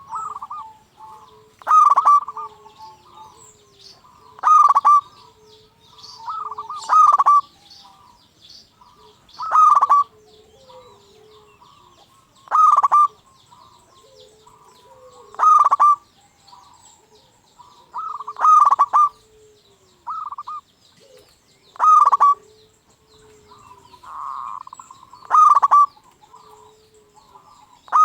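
Zebra dove (perkutut) cooing its song over and over, a loud call every two to three seconds, some of them doubled. Fainter chirps and coos of other birds sound between the calls.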